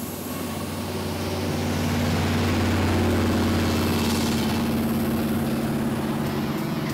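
A vehicle engine running with a steady low hum. It grows louder over the first three seconds, as if approaching, then eases off slightly.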